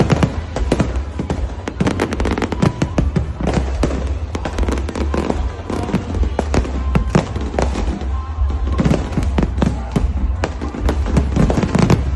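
Fireworks going off in rapid, irregular succession, many sharp bangs and crackles a second, with music playing underneath.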